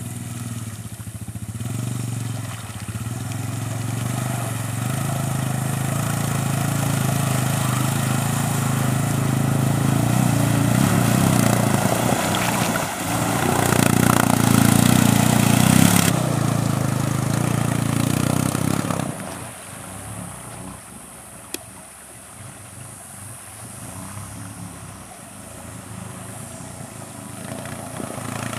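Suzuki LT-Z250 quad bike engines running under throttle as the ATVs ride through a water hole, with a rushing hiss building to its loudest about halfway through. About 19 seconds in the sound drops suddenly to a quieter, lower engine note.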